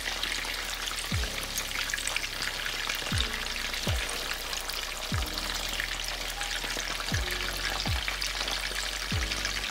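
Salmon fillets sizzling and crackling steadily in oil in a frying pan over low heat, with lemon juice cooking in. Under it, a deep thud sounds every one to two seconds.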